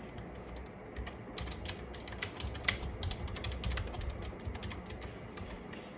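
Typing on a Logitech K480 wireless keyboard: a run of irregular key clicks, thickest in the middle and thinning out near the end.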